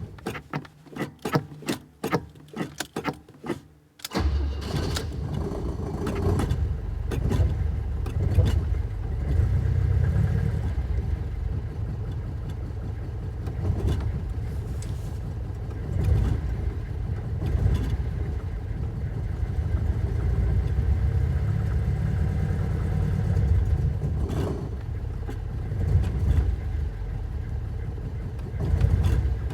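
Alfa Romeo engine on a cold, hard start: it sputters in uneven bursts, then catches about four seconds in and keeps running. Its revs swell and fall again several times as the throttle is pumped.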